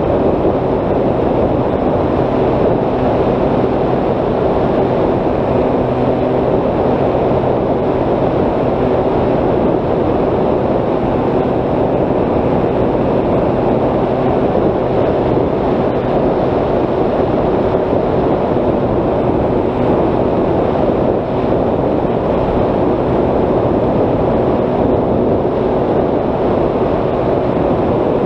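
Steady wind rush on the microphone of a camera carried by a Bixler 3 foam RC plane in cruising flight. Under it is a faint, low, steady hum from the plane's brushless electric motor and 10x7 propeller.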